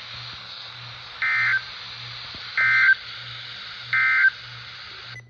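Emergency Alert System end-of-message signal: three short digital data bursts of the SAME "NNNN" code, about a second and a half apart, marking the end of the tornado warning broadcast. A steady radio hiss and low hum run underneath.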